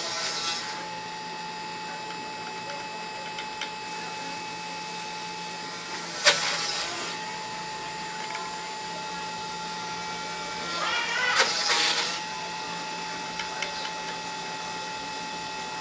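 Stepper motors of a home-built Arduino Mega CNC machine humming with several steady tones, with two louder, noisier passages of movement about six seconds in and again around eleven to twelve seconds.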